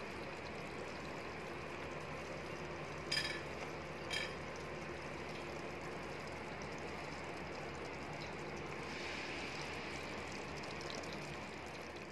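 Mutton curry simmering and sizzling in an open pressure cooker on a gas flame, a steady bubbling hiss. Two short sharp clicks sound about three and four seconds in.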